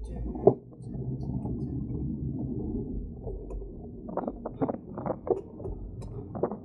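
A bicycle being ridden: a steady low rumble of the tyres rolling along the path. From about four seconds in, short knocks and rattles come from the bike.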